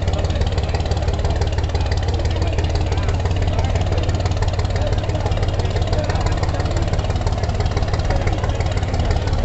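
Diesel engines of a large multi-deck passenger river launch running steadily at low speed alongside the landing, a constant low rumble.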